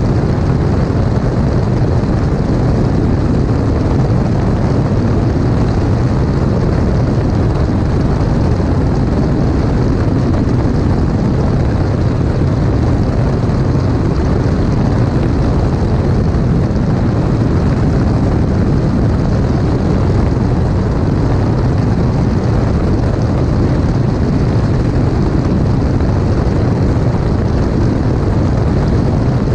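Light aircraft's piston engine and propeller running steadily in flight, with a constant rush of airflow past the wing, heard from under the wing.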